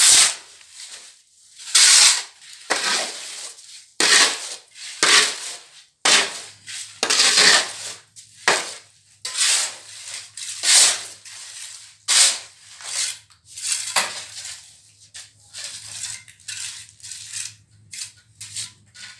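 Hand trowel scraping and spreading wet cement mortar over a floor, in a run of irregular strokes about one or two a second.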